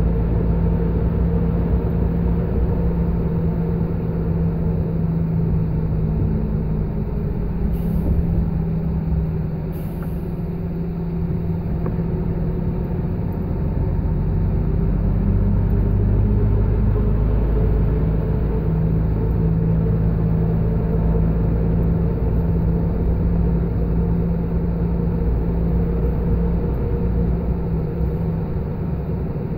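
Vehicle engine running steadily while driving, with road rumble; the engine note shifts slightly a few times. Two brief clicks about eight and ten seconds in.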